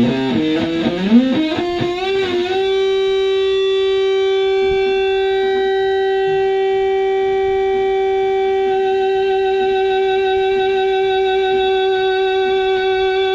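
Electric guitar through a Tone Bender MKII fuzz pedal: a short phrase of bent notes, then a single note held with long, steady fuzz sustain for about ten seconds.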